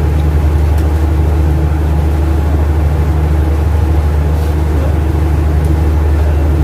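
Steady low drone of a supply vessel's running machinery (engines or generators), an even hum without change.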